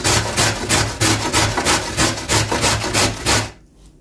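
Carrot being grated on a stainless steel box grater: quick, even rasping strokes, about four a second, that stop shortly before the end.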